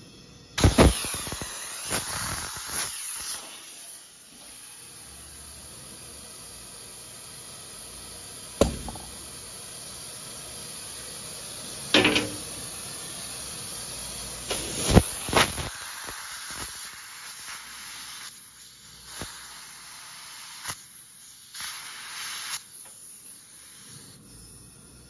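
Compressed air hissing through an air-hose chuck on a riding lawnmower tire's valve stem as the tire is inflated. Several sharp knocks and pops break in, the loudest about a second in and a few more spaced through.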